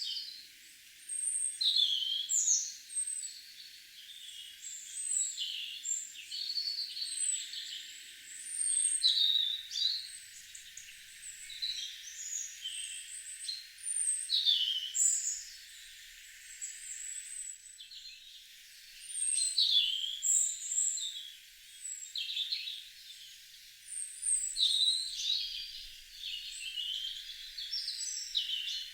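Several songbirds singing and calling over one another in short chirps and whistled phrases, with no let-up.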